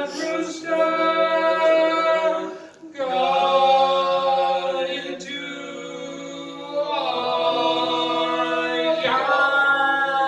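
A male vocal quartet singing a cappella in close harmony, holding long chords. The voices break off briefly about three seconds in, then move to new chords twice more.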